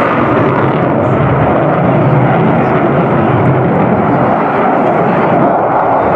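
Lockheed Martin F-22 Raptor's twin Pratt & Whitney F119 afterburning turbofans, a loud, steady jet noise as the fighter pulls a tight turn overhead.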